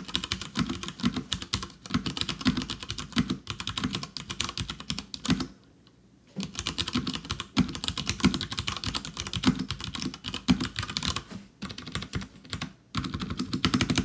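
Typing on a Durgod Taurus mechanical keyboard with Cherry MX Brown switches and PBT Cherry-profile keycaps: a fast, continuous stream of key clicks. The typing pauses for under a second about five and a half seconds in.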